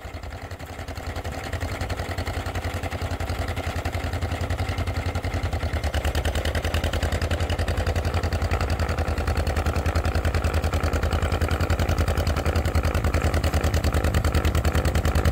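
Tractor engine running steadily, growing gradually louder as it comes closer.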